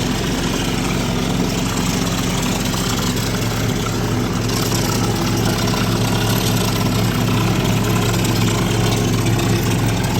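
An engine running steadily at a constant speed, with no change in pitch or level.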